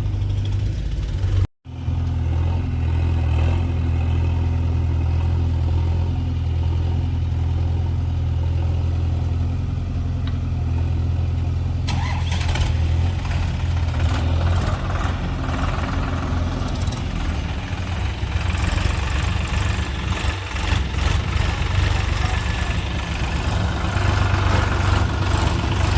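Diesel engine of a backhoe loader and tractor running steadily with a low drone, broken by a brief dropout about two seconds in; from about halfway through, irregular clattering joins the engine.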